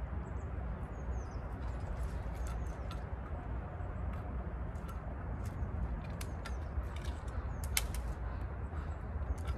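Steady low wind rumble on the microphone, with scattered light clicks and knocks, the sharpest about eight seconds in, and a few faint bird chirps in the first two seconds.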